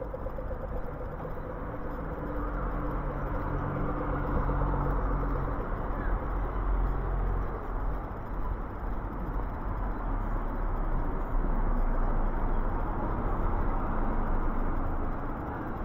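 Road traffic: vehicles passing on the street, the noise swelling and easing twice, with a steady engine hum through the first few seconds.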